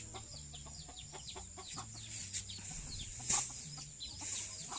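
Native chickens clucking with many short, quick calls, over a low steady hum, with one brief knock about three seconds in.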